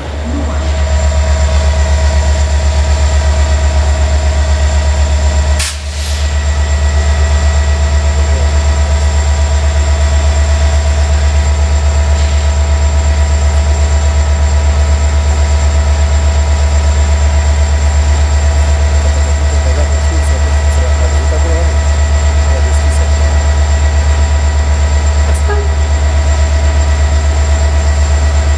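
Loud, steady low drone of an idling diesel train engine, with a few steady higher tones over it; it briefly drops out about six seconds in.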